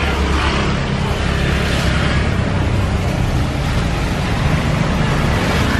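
Steady street background noise: a continuous low rumble with hiss, typical of traffic beside a street-food stall.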